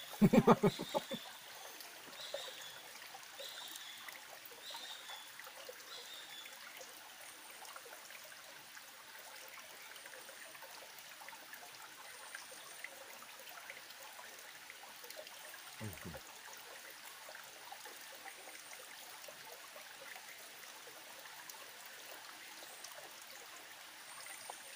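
Small stream trickling steadily over rocks. A short repeated chirp sounds about once a second for the first few seconds, and a brief voice-like sound comes right at the start.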